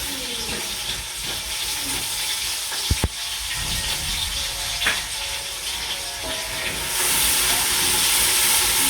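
Onions and tomato paste sizzling as they fry in a pan, a steady hiss that gets louder about seven seconds in, with a couple of short knocks partway through.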